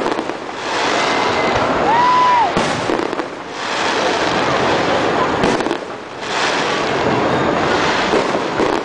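Fireworks display: dense, overlapping bursts and crackling in three loud waves, with a short whistle about two seconds in.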